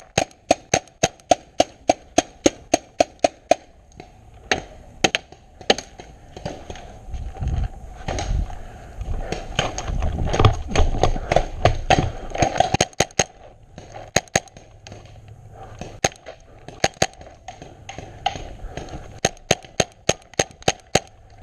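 Paintball markers firing in rapid strings of sharp pops, about four a second, near the start and again near the end, with scattered single shots between. A louder, rough rustling noise builds in the middle and then falls away.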